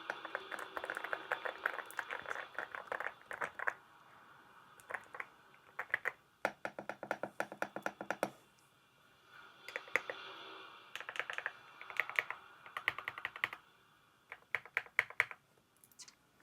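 Yunzii Cake mechanical keyboard being typed on: quick runs of keystrokes, broken by short pauses of a second or so.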